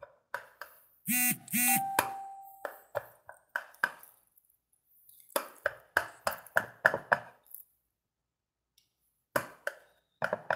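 Knife sawing down through a soft cake, a run of short sharp taps about three to four a second in several bursts as the blade strokes and meets the plate. About a second in, a brief pitched chime with a short held tone rings over it.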